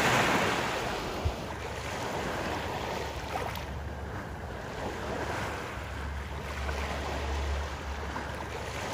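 Small waves lapping and washing up onto a wet beach, one breaking wave loudest at the start. Wind rumbles on the microphone, strongest a little past the middle.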